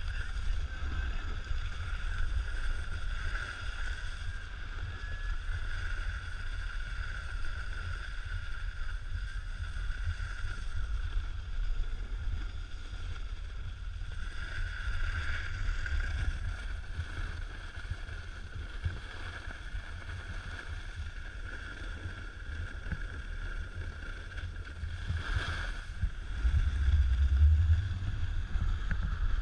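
Snowboard sliding and scraping over packed snow, with wind rushing over an action camera's microphone as a heavy low rumble. A steady faint high whine sits under it, and the rumble swells louder near the end.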